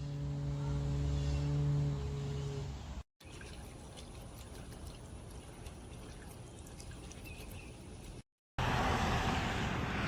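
Small floating solar fountain pump spraying water into a bird bath: splashing and trickling water, louder in the last clip about 8.5 seconds in. A steady low hum sounds under the first three seconds.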